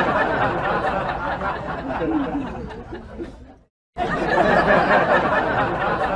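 Laugh track: many people chuckling and laughing at once. It cuts out for a moment about two-thirds of the way through, then starts again.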